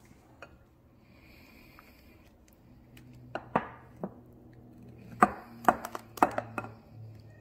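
A metal-handled silicone spatula knocks and clinks a few times against a glass mixing bowl as a thick cream mixture is scraped and poured over fruit. The first few seconds are quiet under a low steady hum, and the sharp knocks come from about halfway through, several close together near the end.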